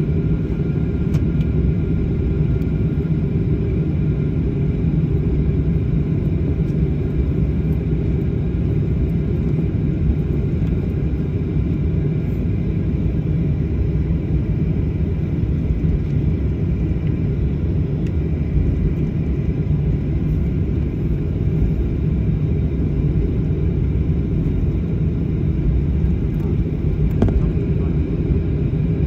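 Jet airliner cabin noise while taxiing: the steady low rumble of the engines at taxi power, with a faint, steady high engine whine above it.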